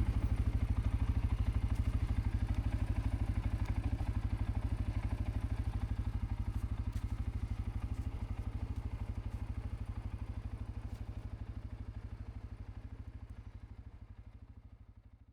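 A single-cylinder ATV engine, a CFMOTO CForce 520L, idling with a steady, even low chugging of about ten pulses a second, fading away near the end.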